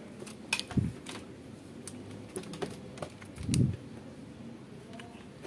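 Scattered light clicks and ticks of metal tweezers tapping and picking at a TV power-supply circuit board, with two dull knocks, one about a second in and a louder one about three and a half seconds in.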